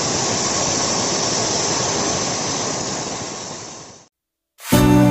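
Plasma torch cutting steel plate: a steady, loud hiss of the arc and gas jet that fades out about four seconds in.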